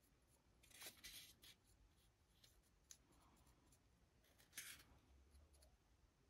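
Faint scratchy strokes of a paintbrush working a wash over a small miniature, in two short bursts, about a second in and again after four seconds, with a few light ticks of handling; otherwise near silence.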